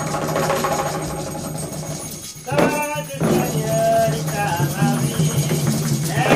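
Live voodoo ceremony music: a steady shaking of hand percussion, joined about three seconds in by voices singing a chant.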